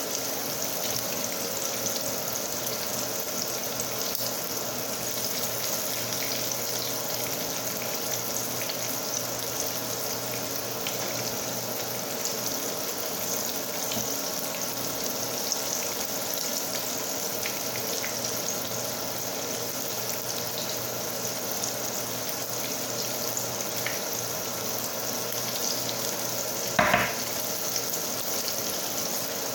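Flour-dredged chicken pieces shallow-frying in hot oil in a pan, a steady sizzle. A brief, louder sharp sound comes near the end.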